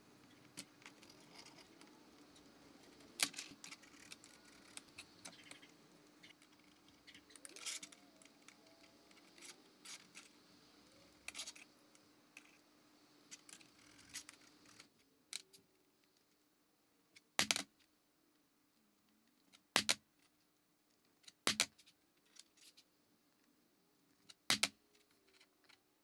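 Scattered light clicks and clinks of objects being handled, over a faint steady hum that stops about halfway through. Four sharper knocks come in the later half.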